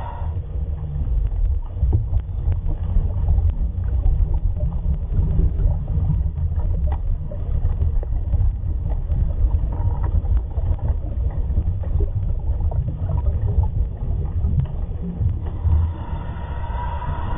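Underwater sound picked up through a camera housing: a steady low rumble with many small scattered clicks.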